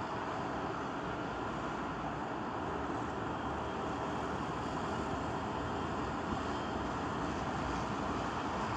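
Engine of a hi-rail boom truck running steadily, heard as an even mechanical noise with no sharp events.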